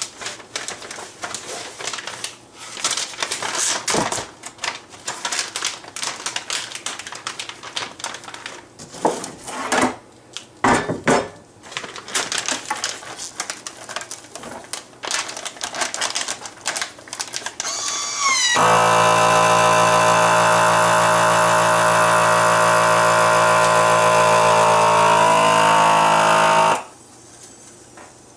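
Plastic vacuum-sealer bag crinkling and rustling as the roast is slid in and the bag is handled. About 18 seconds in, the FoodSaver vacuum sealer's pump starts and runs steadily and a little loud for about eight seconds, drawing the air out of the bag before sealing, its pitch shifting slightly in the last couple of seconds, then it cuts off suddenly.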